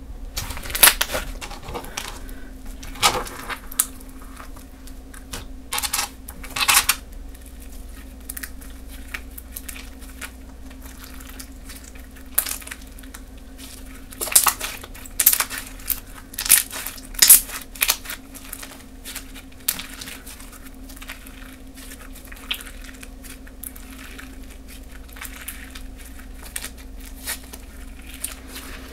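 Slime mixed with clay being squeezed and stretched by hand, giving irregular squishy pops and crackles. The pops come in louder clusters about a second in, a few seconds later, and again in the middle.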